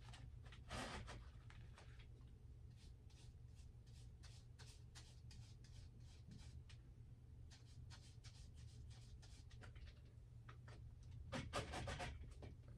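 Paintbrush strokes on canvas: faint, quick scratchy brushing as paint is laid on, with a louder scuffing stretch near the end.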